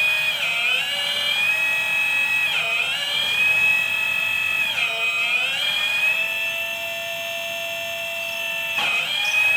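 Electric hydraulic pump of a 1/12-scale metal RC excavator whining steadily at a high pitch, with the pitch sagging briefly about four times as the arm and bucket are worked and the pump comes under load.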